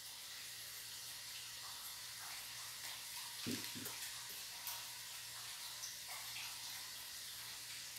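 Faint room noise: a steady low hiss, with a couple of soft knocks about three and a half seconds in.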